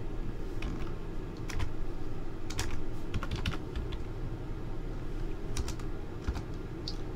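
Computer keyboard keys being typed in short, scattered clusters of clicks, over a steady low hum.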